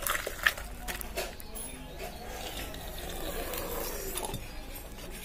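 Fish curry being poured and scraped out of a metal cooking pan into a stainless steel bowl: a few clanks of metal rim on metal in the first second, then the soft slop and slide of the curry.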